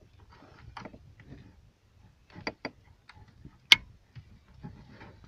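Plastic wiring-harness connectors and their wires being handled: scattered small clicks and rustles, with one sharp click nearly four seconds in.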